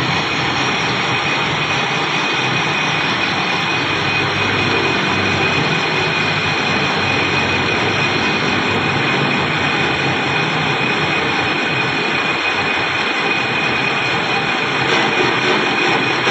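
Steady, loud rushing machine noise with a thin high whine held on top, unbroken throughout; a few irregular knocks come near the end.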